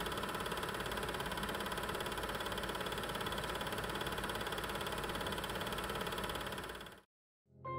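A small machine running steadily, a continuous whirr with a fast, even flutter. It cuts off abruptly about seven seconds in.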